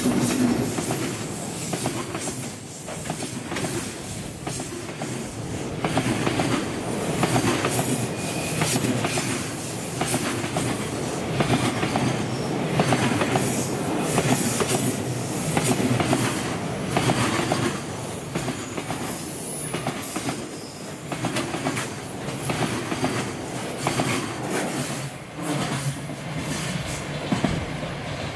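Container freight train hauled by an EF210 electric locomotive rolling past at speed: a steady rumble of wheels with rapid clicks over the rail joints. A high wheel squeal on the curve is heard over the first several seconds and again about two-thirds of the way through. The noise eases slightly near the end as the last wagon passes.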